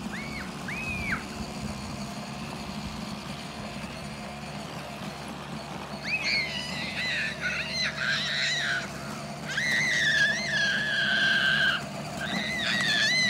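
A young child screaming in long, high-pitched, wavering squeals from about six seconds in, after two short squeals near the start. Under the screams runs the low, steady hum of a child's electric ride-on toy motorcycle.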